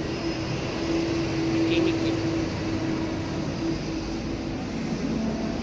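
A steady mechanical hum over outdoor background noise, swelling a little in the middle.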